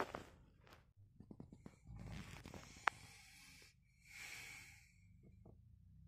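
Faint rustling and handling noises inside a vehicle cab, with a single sharp click about three seconds in and a brief breathy hiss near the end.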